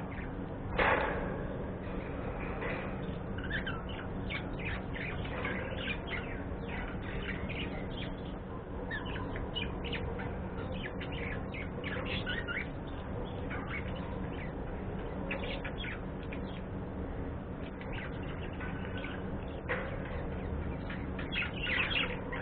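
Pet budgerigars chirping and chattering in quick, scattered calls over a steady low hum, with one louder call about a second in.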